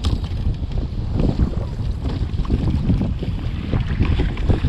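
Strong wind buffeting the microphone in gusts, a heavy low rumble, over choppy sea water splashing around a kayak.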